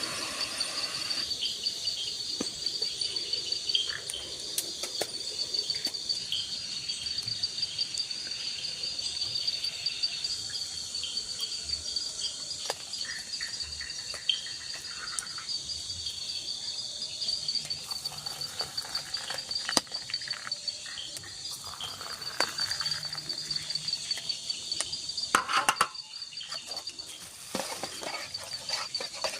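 Steady high-pitched trilling chorus of night insects in tropical forest, running on without a break, with scattered light ticks and taps over it.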